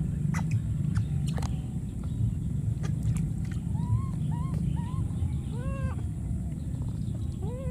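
Baby monkey giving a series of short, arched, high-pitched calls, about five in the second half with the strongest near the end, over a steady low rumble.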